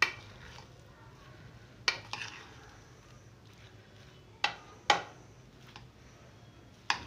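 A metal spoon clinking against a ceramic plate while mashed potato is stirred together with herbs and spices: five sharp clinks spread out irregularly, with quieter stirring in between.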